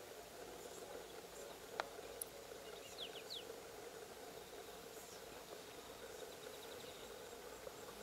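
Faint bush ambience: a steady insect hum, with a few short bird chirps about three seconds in and a quick run of high ticks around the middle.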